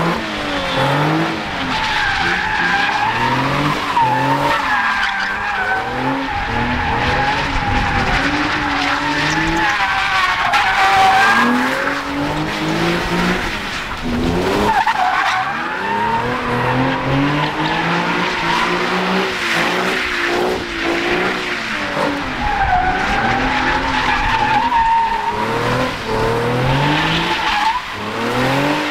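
Nissan 370Z's V6 revving up and down over and over while it spins donuts, its rear tyres squealing continuously as they burn out.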